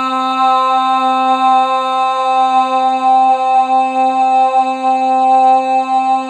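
A woman's voice toning: one long, steady held note on a single pitch, a meditation tone sung without words.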